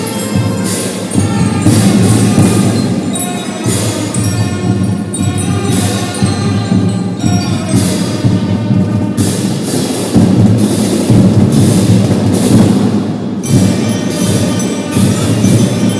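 School marching drum band playing: drums beat a steady rhythm under a ringing melody on mallet bells.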